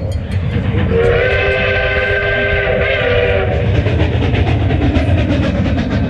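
A train's whistle blows from about a second in, for roughly two and a half seconds, over the steady rumble and rhythmic clickety-clack of the train running on the rails.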